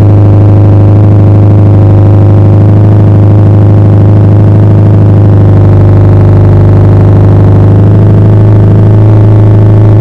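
Subaru Impreza STI's turbocharged flat-four boxer engine idling through an A.R.T. titanium cat-back exhaust, heard right at the tailpipes: a loud, steady low drone with no revving.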